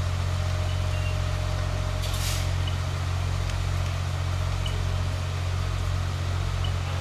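Fire apparatus engine running steadily, a constant low drone, with one short hiss about two seconds in.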